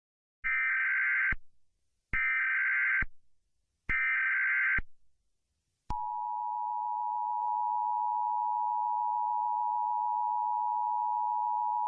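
Emergency Alert System tones: three short, identical bursts of SAME header data, each just under a second long, then the steady two-tone EAS attention signal. The attention signal starts about six seconds in and keeps sounding.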